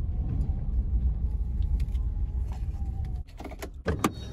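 Car engine running with a loud low rumble and a faint steady whine; about three seconds in the rumble drops and several sharp clicks and knocks follow.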